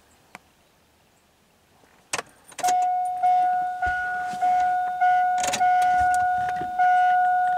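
Near silence, a couple of clicks about two seconds in, then the Chevrolet Silverado's dashboard warning chime starts dinging steadily, roughly three dings every two seconds, with the ignition switched on.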